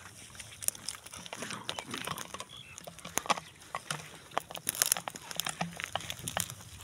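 A dog mouthing and biting a plastic water bottle on a bed of dry twigs: irregular crinkles, clicks and snaps, with the loudest cluster a little before the fifth second.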